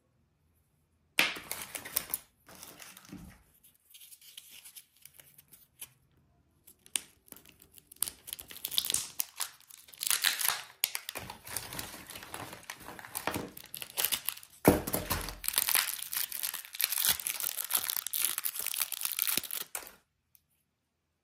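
Surprise-egg wrappers and plastic toy capsules being handled and opened: irregular crinkling and tearing with small clicks, starting about a second in and stopping shortly before the end.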